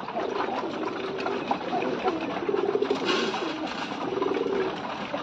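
Giribaz pigeons cooing, a run of low warbling coos one after another, with faint ticking of beaks pecking grain. There is a brief rustle about three seconds in.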